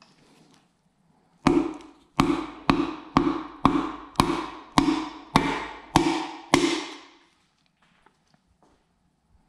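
Rubber handle of a mallet tapping a piston down through a band-type piston ring compressor into a Toyota 2JZ engine block's cylinder bore: ten firm taps, about two a second, each with a short ring. The taps start about a second and a half in and stop a little past halfway.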